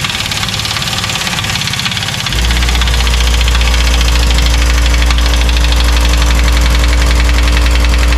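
Air impact wrench hammering continuously as it drives a wheel bearing press tool's screw to push a seized wheel bearing out of a side-by-side's hub. About two seconds in it takes on a deeper, heavier, steady note.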